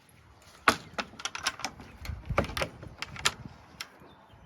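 A quick, irregular run of about a dozen sharp clicks and knocks, like hard parts being handled, with the first one the loudest.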